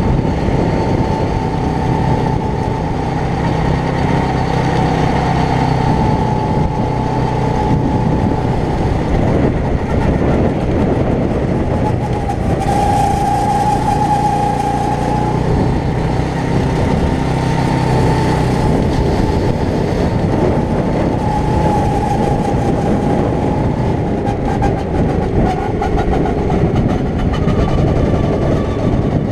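Go-kart's small engine running steadily while the kart drives laps, heard from on board with wind and road noise, the engine's pitch wavering slightly through the corners.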